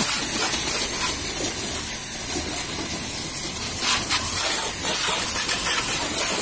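High-pressure washer jet hissing as it sprays water against a scooter's plastic body panels. The hiss eases slightly a couple of seconds in and grows louder again about four seconds in.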